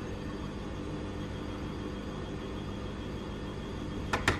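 A steady hum with a few faint steady tones in it. Near the end comes a quick run of sharp clicks.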